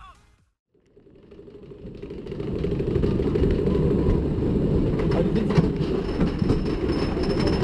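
Wooden roller coaster train being hauled up the chain lift hill: a steady, clattering rumble of the lift chain and wheels that fades in about a second in and reaches full level by about three seconds.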